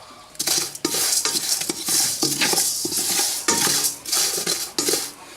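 Unhulled rice grains rattling and scraping in a hot dry metal pan as it is kept moving, in a string of hissy rushes a second or so apart. The rice is dry-roasting before it pops.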